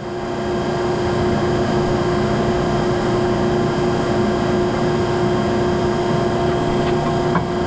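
Drill press motor running with a steady hum and one steady tone while its 1/8-inch bit bores into a small piece of 3/8-inch square bar stock, the bit oiled to keep it from overheating.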